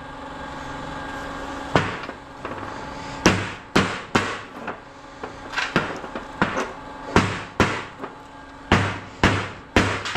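Hammer striking the welded steel core laminations of small transformers lined up together, about a dozen sharp metallic blows, often in quick pairs, to crack the welds. The blows start nearly two seconds in, over a faint steady hum.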